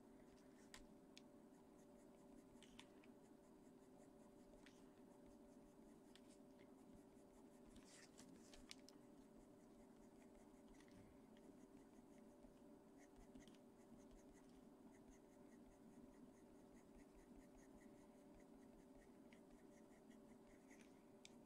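Faint scratching of a Caran d'Ache Pablo coloured pencil on paper in short, repeated strokes, over a steady low hum.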